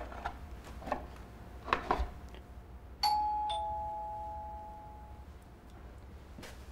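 Two-tone ding-dong doorbell chime: a higher note, then a lower one about half a second later, both fading out over roughly two seconds. Before it, a few light knocks and scrapes of a knife and bread on a wooden board.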